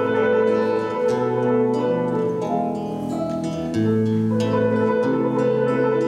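Instrumental passage on a small acoustic plucked string instrument. Picked notes ring over a bass note that changes every second or so.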